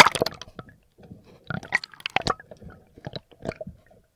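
Water bubbling and sloshing around a camera held underwater, heard as irregular crackling, squelching bursts and clicks, loudest right at the start.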